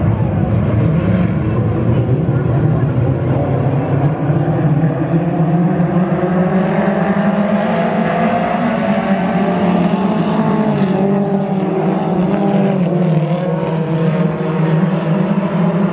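A pack of dirt-track stock cars racing, many engines running hard together. Their combined note rises and falls as they come through the turns.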